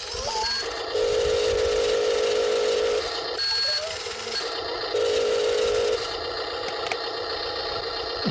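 Toy RC excavator's small electric motors whining in on-off spells of one to two seconds, each starting and stopping abruptly, with a few short electronic beeps between them.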